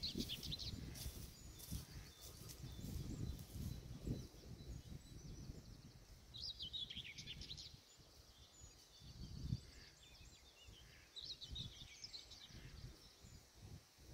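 Footsteps crunching through dry leaf litter on a woodland floor, fading as the walker moves away. Over them a small songbird sings a few short phrases.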